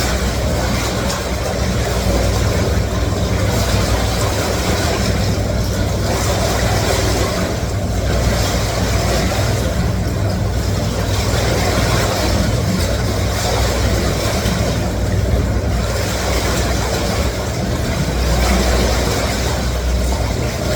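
Counter-current swim machine running at full speed: a steady low pump hum under a loud rush of churning water, the rush swelling and dipping every two seconds or so.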